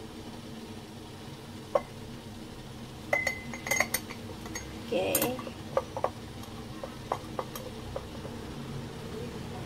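A handheld metal grater clinking and tapping against the rim of a glass jar while a block of cheese is grated, in a string of irregular clinks. The clinks bunch up about three to six seconds in, and one leaves the glass briefly ringing.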